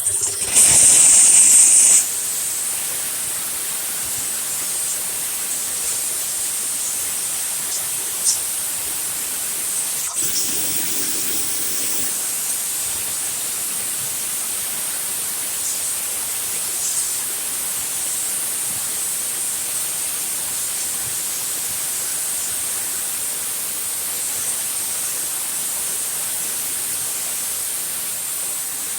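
Steamer hissing steadily as steam is blown into a clogged refrigerator defrost drain to clear it. The hiss is louder for the first two seconds.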